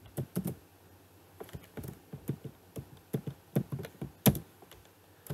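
Typing on a computer keyboard: irregular keystroke clicks, with one louder click about four seconds in.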